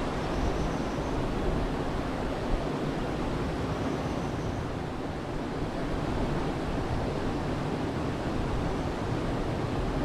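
Steady rush of river water flowing over rocks, with a low, uneven wind rumble on the microphone.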